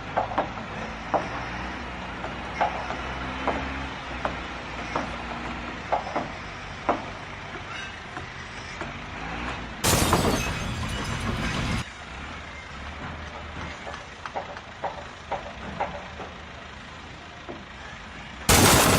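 A heavy engine running steadily, with scattered sharp knocks and clanks. Two loud hissing bursts cut in: one about ten seconds in that lasts about two seconds, and another near the end.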